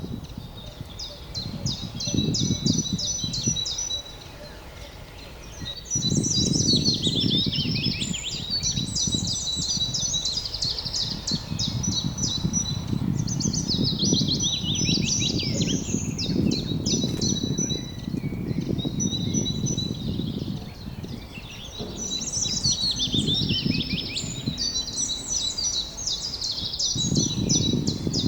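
Songbirds singing in a forest field: quick chirping trills and repeated phrases, coming in bouts with brief pauses. Beneath them a low rumble swells and fades throughout.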